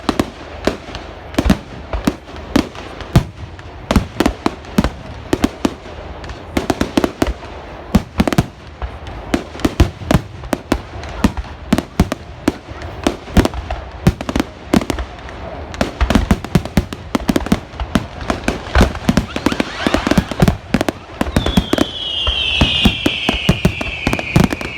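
Fireworks display going off in a rapid, continuous run of sharp bangs and crackles. Near the end a whistling firework gives a falling whistle over the bangs.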